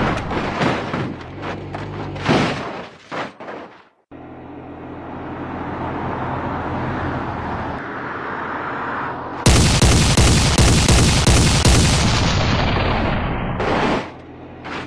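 Thunder over heavy rain: crashing rolls that die away to a moment of silence about four seconds in, the rain swelling back up, then a sudden loud thunderclap with sharp crackling a little past halfway that fades near the end.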